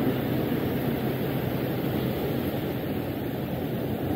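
Small surf breaking and washing up over the sand in a steady rush.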